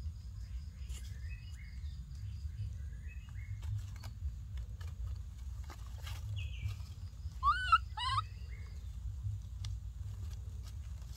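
Leaves rustling and ticking faintly as a baby macaque shifts and crawls among them, over a steady low rumble. A little past the middle, two short high calls that bend up and down stand out as the loudest sound.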